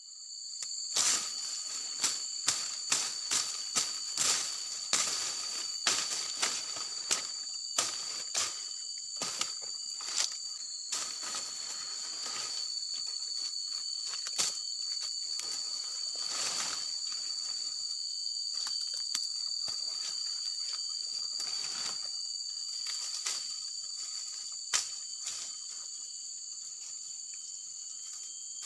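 Steady, high-pitched insect chorus, like crickets, that carries on throughout. Over it come many sharp crackling footsteps and snaps through dry swamp vegetation, frequent in the first half and thinning out to a few near the end.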